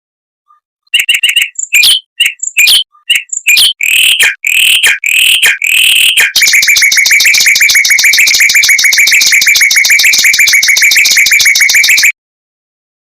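Mockingbird singing: a string of short, separate phrases, then from about six seconds in a long, fast, even trill (a 'roll') that stops abruptly near the end.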